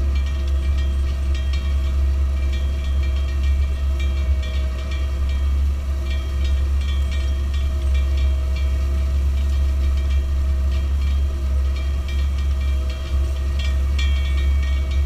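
Large farm tractor's diesel engine running steadily under ploughing load: a strong, even low drone with light clicking and rattling over it.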